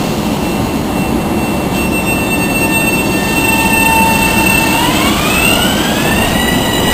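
LIRR M7 electric multiple-unit train pulling away, wheels rumbling on the rails. Its motor whine holds steady, then climbs in pitch about five seconds in as the train gathers speed.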